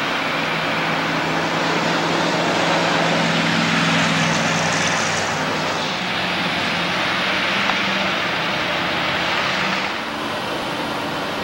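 Engine running steadily with a loud, even rushing noise over it, easing off slightly near the end.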